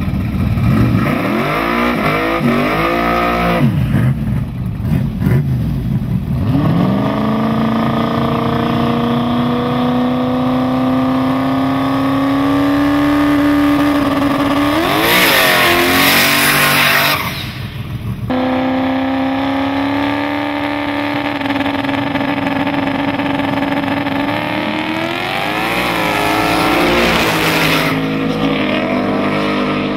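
Drag-racing car engines, a Ford Mustang's among them, revving at the starting line. An engine is held at high, slowly rising revs for several seconds at a time, twice. Bursts of revving and tyre noise follow, then the cars launch hard with wheelspin near the end.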